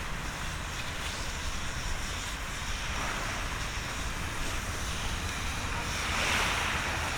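Sea waves washing on the shore, a steady hiss that swells about six seconds in, with wind rumbling on the microphone.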